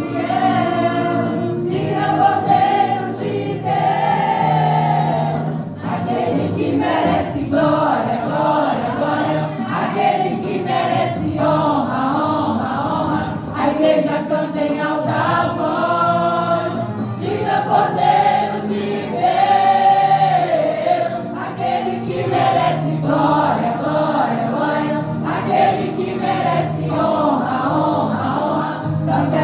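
Gospel vocal group singing a Portuguese worship song in harmony over instrumental accompaniment.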